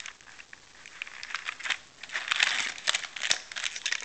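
Plastic toy packaging crinkling and crackling as it is handled, with scattered sharp clicks.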